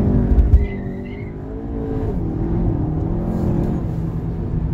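Stage 2 tuned Audi A3 engine under load, loudest in the first half-second, then easing off and settling into a steady running note with a slight drop in pitch about two seconds in.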